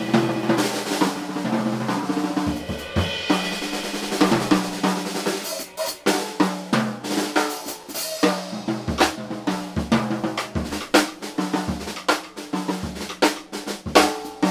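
Live small-group jazz: a drum kit played busily, with snare, bass drum and cymbals, over an upright double bass line and a hollow-body electric guitar.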